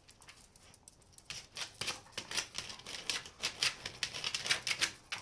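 A dog's claws scratching and scraping at a football frozen to icy paving: a quick, irregular run of clicks and scrapes starting about a second in.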